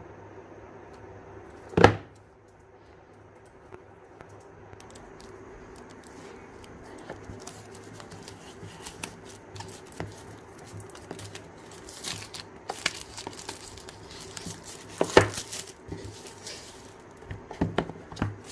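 Product packaging being opened by hand: a sharp knock about two seconds in, then rustling, crinkling and tearing of the wrapping with scattered clicks, and another loud knock near the three-quarter mark.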